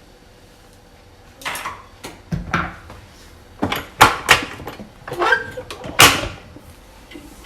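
A run of sharp knocks and scrapes, a kitchen utensil against a bowl, from about a second and a half in until about six seconds in.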